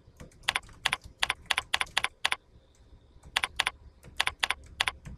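Typing on a computer keyboard: a run of sharp key clicks, a few a second, with a short pause about halfway through.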